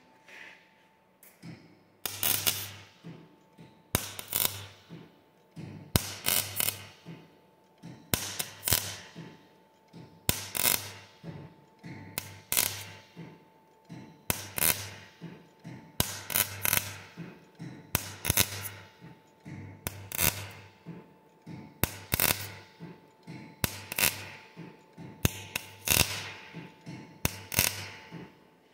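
MIG welder arc striking on stainless steel tube in short stitch-weld bursts, one about every two seconds, often in quick pairs, each burst with a low hum underneath and brief pauses in between.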